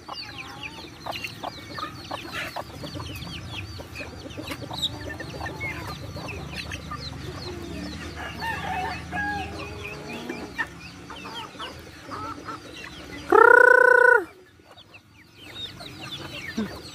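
A flock of backyard chickens and growing chicks feeding: steady clucking and many high, short chick peeps. About two-thirds of the way through, one loud, short crow of about a second rings out from a young rooster.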